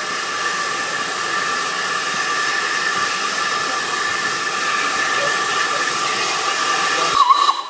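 Standing steam locomotive blowing off steam: a loud, steady hiss with a faint high whistling tone in it. It cuts off abruptly near the end.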